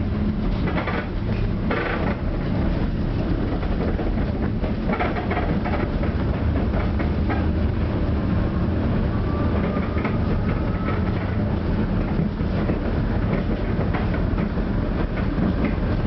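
Tram rolling along its track, heard from on board: a steady low rumble of wheels on rail with scattered clicks and clatter. A faint rising whine comes in about halfway through.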